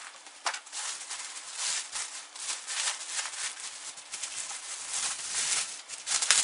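Plastic bag and foam sheet wrapping rustling and crinkling as they are pulled off a soundbar by hand, unevenly, loudest near the end.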